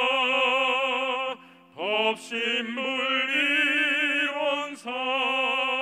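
A Won Buddhist hymn (seongga) sung by a solo voice in a classical, operatic style, holding long notes with wide vibrato over steady sustained accompaniment tones. The voice breaks off for a breath about a second and a half in and again near the end.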